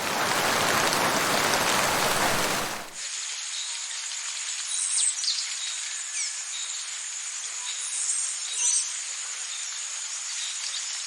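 Heavy rain hiss for about three seconds, then an abrupt cut to quieter tropical rainforest ambience: a steady high insect drone with short falling bird whistles and chirps.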